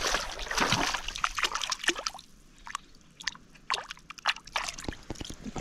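Hand swishing an arrowhead back and forth in shallow muddy river water to wash it: sloshing and small splashes, busiest for the first couple of seconds, then scattered drips and little splashes.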